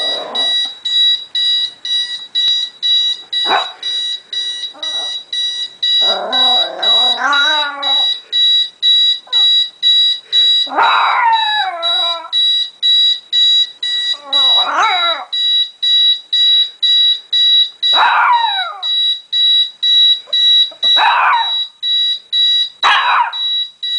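An electronic alarm clock beeps in a rapid, even, high-pitched pulse throughout, while a puppy cries out against it in repeated wavering calls every few seconds, several of them falling in pitch. The longest call, a wavering cry of about two seconds, comes a quarter of the way in.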